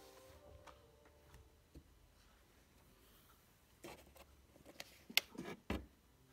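Faint room tone, then from about four seconds in a short run of light knocks, taps and rustles as a sketchbook lying on a clipboard is handled.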